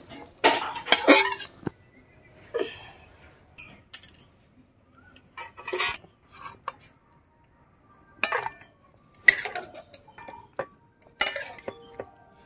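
A metal spoon clanking and scraping against a metal kadai as cooked curry is stirred and scooped: irregular separate clinks and scrapes about every second, some with a brief metallic ring.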